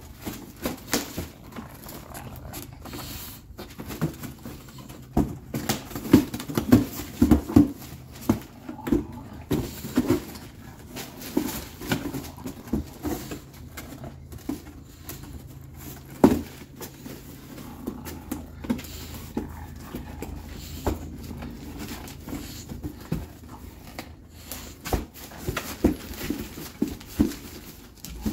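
Bulldog puppy thrashing about with a cardboard box over its head: irregular knocks and scrapes of the box against the floor, newspaper rustling, and the puppy's grunts. There is a sharp, loud knock about sixteen seconds in.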